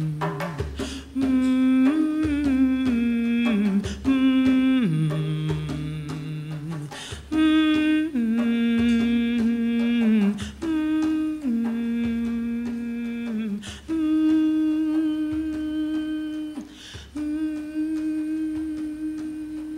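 A woman humming a slow, wordless melody in long held notes, stepping up and down between them. Occasional hand-drum strikes sound every few seconds.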